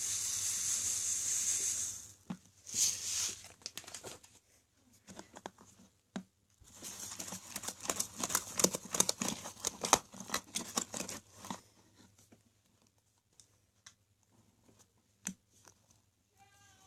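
Sticky slime full of tiny decorative sand rocks being kneaded and stretched by hand, giving a dense crackling and clicking in bursts, thickest from about seven to eleven seconds in, after a steady hiss in the first two seconds. The grainy slime crackles but does not crunch.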